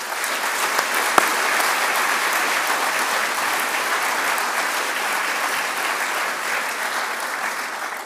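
Audience applauding steadily, with one sharp knock about a second in.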